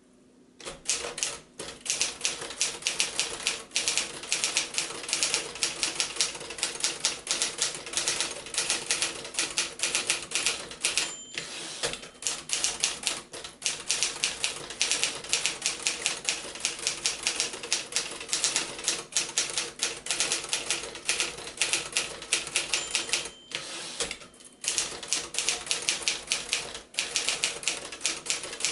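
1956 Remington Letter-Riter manual typewriter being typed on steadily: a rapid, uneven run of key strikes and typebar clacks. Twice a short bell rings, followed by a brief pause in the typing.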